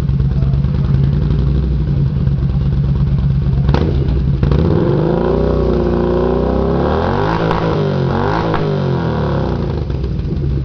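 Yamaha Midnight Star 950 V-twin running through a Roncar Scorpion V Road aftermarket sport exhaust. It idles steadily, then from about five seconds in is revved, its pitch rising and falling several times with the throttle.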